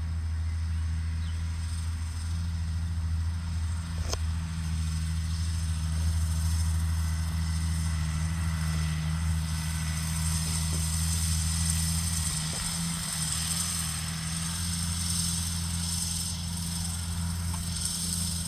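Case MXU 130 tractor's diesel engine running steadily under load while it pulls a fertiliser spreader across the field, a constant low drone. A single sharp click about four seconds in.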